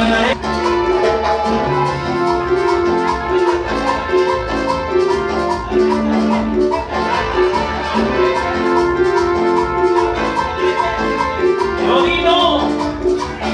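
Upbeat Latin dance music, salsa-like, with instruments over a steady beat.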